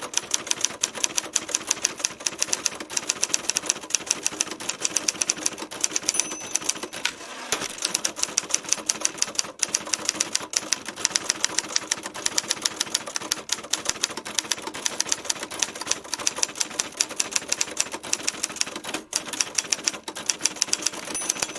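Vintage typewriter being typed on steadily, its keys striking in a fast, even clatter of about five strokes a second, with a couple of short pauses.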